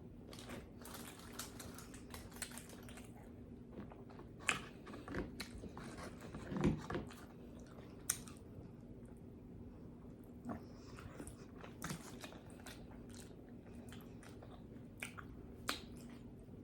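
Close-miked chewing of pizza, with scattered wet mouth clicks and smacks at irregular intervals.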